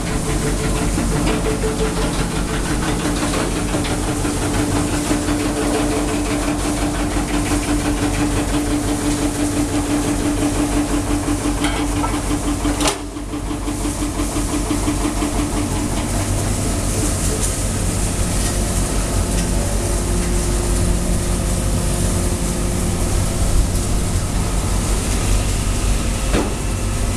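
Sawdust and shavings gluing mixer running steadily: a loud, continuous machine noise with a steady hum, briefly dipping about halfway through.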